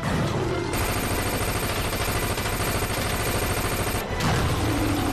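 Sustained automatic rifle fire in a film soundtrack: two long bursts, broken by a short pause about four seconds in.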